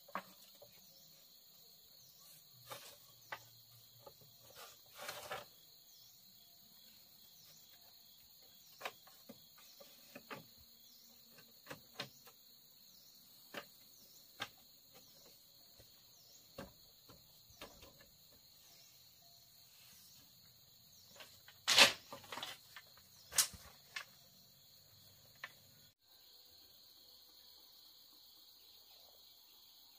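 Steady high insect chirring, with scattered sharp knocks and taps; the loudest knocks come in a short cluster about two-thirds of the way through.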